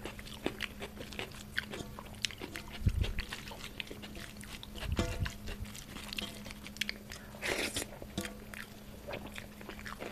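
Close-miked wet chewing and lip-smacking of a person eating rice mixed with dal by hand, heard as many small irregular clicks and smacks, with two low thumps about three and five seconds in.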